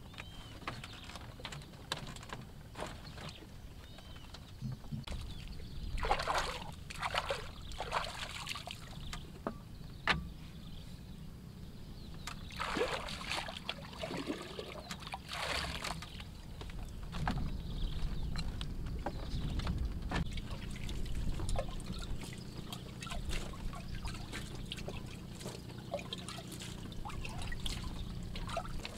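Lake water sloshing and trickling as a clay pot is dipped in and filled by hand, in a few swishing spells with small clicks and knocks of handling between them.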